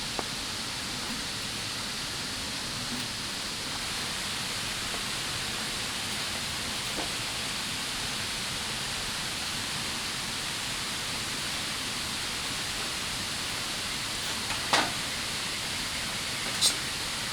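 Steady rushing of a nearby river, with two sharp clicks near the end.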